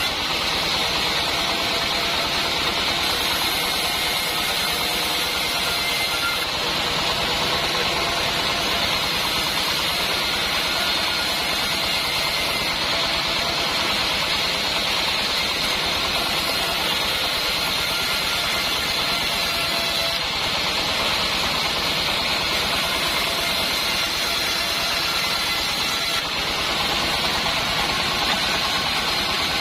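Band sawmill running steadily: an even mechanical hum with a strong hiss, no change in pace throughout.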